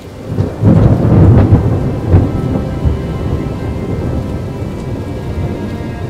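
A thunder rumble that swells about half a second in and is loudest for the next couple of seconds, then fades into steady, heavy rain.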